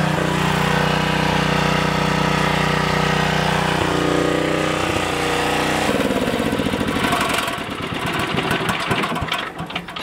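Small portable generator engine running steadily, then turning ragged and surging unevenly before it cuts out near the end: it is running out of gas with its fuel line shut off.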